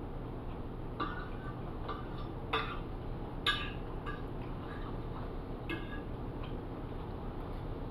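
Metal fork clinking and scraping against a plate, about half a dozen light clinks, the sharpest about three and a half seconds in.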